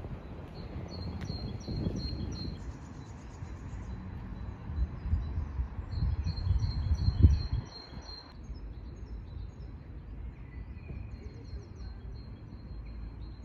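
Outdoor park ambience: small birds singing quick runs of repeated high chirps over a low rumble of background noise, with a brief louder low gust or thump about seven seconds in.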